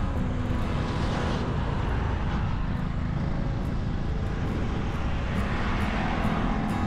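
Steady wind rush on the camera's microphone while cycling along the road, with traffic noise swelling about a second in and again near the end.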